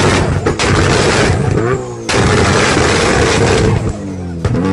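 Nissan Skyline's tuned engine revved hard, its exhaust firing a rapid string of pops and bangs. It drops off briefly about two seconds in, then revs up again.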